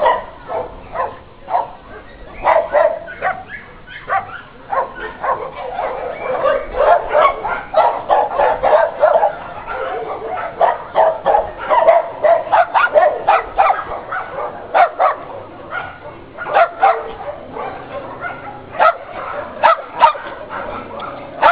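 Many dogs barking and yipping at once in a shelter, a dense, overlapping chorus of short barks that keeps going without a break.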